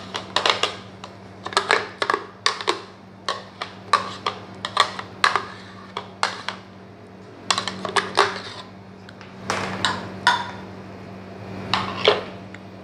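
Metal spoon clicking and scraping against the inside of a jar as thick mango cream mixture is scraped out into a glass dish, in irregular taps a few times a second, over a steady low hum.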